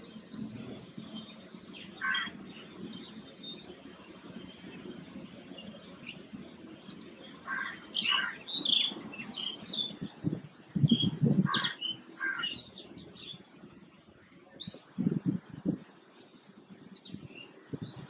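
Small songbirds chirping and calling in the background, a scatter of short, sharp high notes. A few louder low, muffled bursts come in the middle and again near the end.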